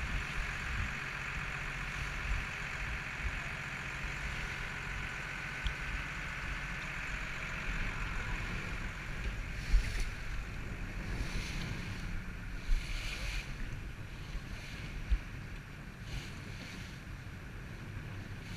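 Fishing boat underway: its engine runs with a steady hum under the rush of water along the hull and wind on the microphone. A few short gusts of hiss come in the second half.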